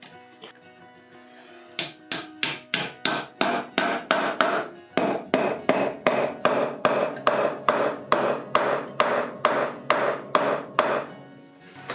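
Wooden mallet striking a hardwood board in a steady run of blows, about three a second. The blows begin about two seconds in and stop about a second before the end.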